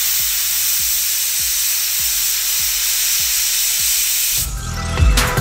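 Pressure cooker venting steam through its weight valve: a loud, steady hiss, the sign that it has come up to pressure. The hiss stops about four and a half seconds in, and music takes over.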